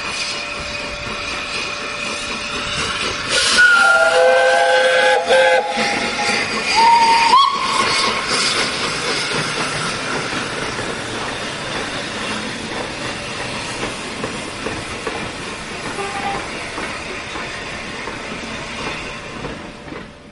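Steam locomotive 60163 Tornado, an A1 Peppercorn Pacific, running with a loud, steady hiss of steam. About three and a half seconds in, a chime whistle of several notes sounds together for about two seconds. A shorter single-note whistle follows, rising slightly, about seven seconds in.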